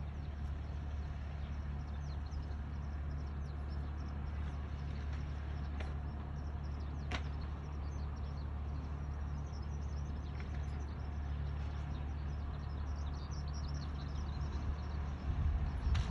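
Rice transplanter's small engine idling with a steady low hum, growing uneven near the end, with a sharp click about seven seconds in.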